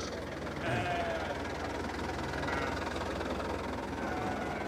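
Goats and sheep bleating a few times over distant crowd chatter and a low steady rumble.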